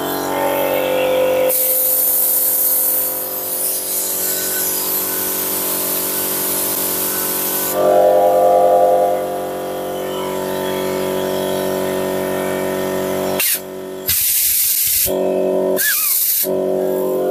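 Compressed air hissing out through an air filter regulator lubricator line: one long blast of about six seconds, then three short blasts near the end. Background music plays underneath.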